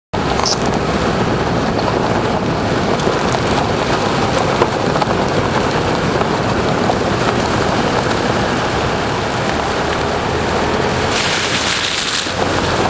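Steady rushing noise of wind on the microphone mixed with the road noise of a vehicle driving along a dirt track.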